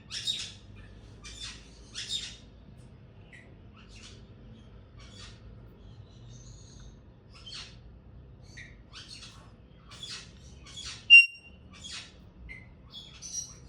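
Pet parrot giving short raspy chirps and squawks at irregular intervals, with one sharp whistled chirp about eleven seconds in, the loudest sound.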